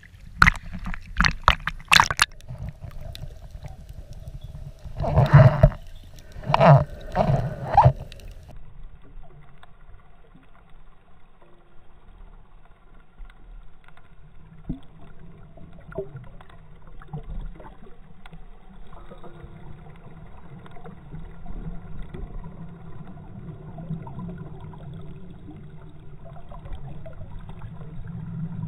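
Choppy sea water splashing and slapping against a camera at the surface, with several loud surges. About eight seconds in the sound turns dull and muffled as the GoPro goes under, leaving a low underwater rumble heard through its waterproof housing.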